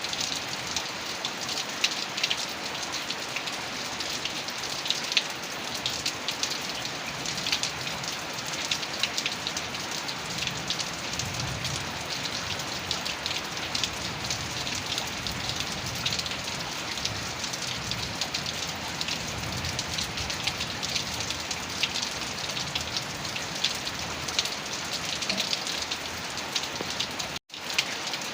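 Heavy rain falling steadily, with a dense patter of individual drops striking a surface. The sound cuts out for a split second near the end.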